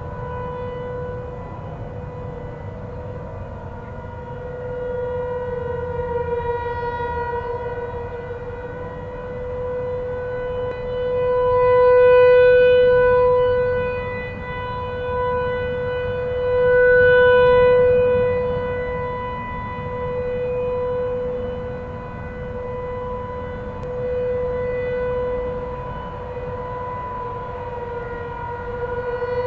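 Several distant outdoor warning sirens, among them Federal Signal 508s, sounding the steady Alert signal. The one steady tone swells and fades every few seconds as the rotating sirens turn toward and away from the listener.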